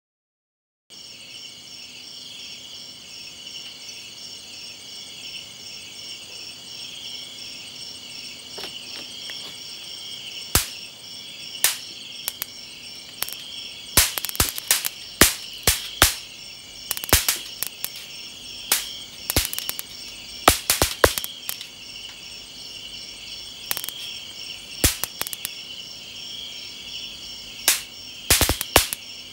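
A steady night insect chorus trills high and continuously. From about ten seconds in, an electric bug-zapper racket gives sharp snaps and crackles, singly and in quick clusters, as insects are electrocuted on its mesh.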